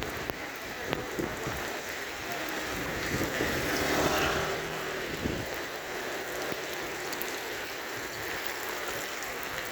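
Steady rain falling, with scattered drop ticks, and a louder swell of noise that rises and falls between about three and five seconds in.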